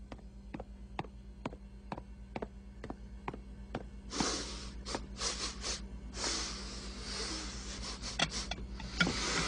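Cartoon sound effects: light, evenly spaced taps about two a second, then from about four seconds in a run of breathy puffs and snorts from the animated pig straining.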